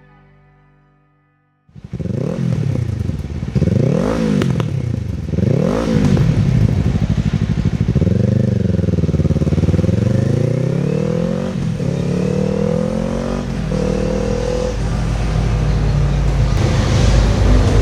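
Kawasaki KLE 500 parallel-twin fitted with an Avionic aftermarket exhaust, starting up about two seconds in. It gives a few sharp throttle blips, then pulls away with the pitch climbing in steps and dipping briefly at each gear change.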